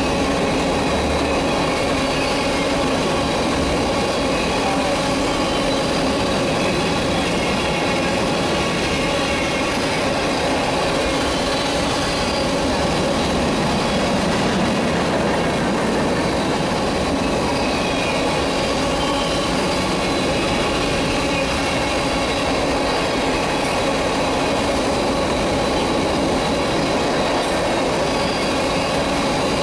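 Freight train of covered hopper cars rolling past close by: a steady, continuous noise of steel wheels on the rails, with several high ringing tones held over it.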